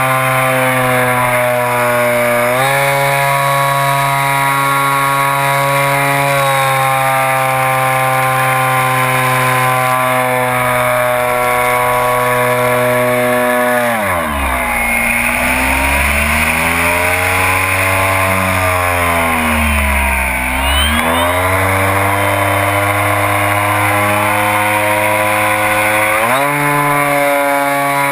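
RC ICON A5 model airplane's motor and propeller buzzing steadily, heard close up from an onboard camera. The pitch steps up a couple of seconds in, sinks sharply about halfway through as the motor slows, wavers for several seconds under a rush of air, then climbs back near the end.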